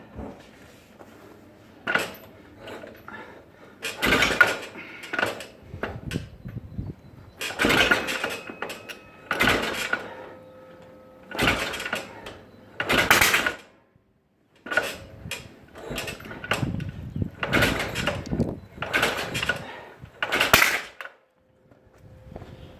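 Yamaha XS650 parallel-twin motorcycle engine being turned over again and again without catching, each attempt a short burst of noise, about a dozen in all: the engine won't start.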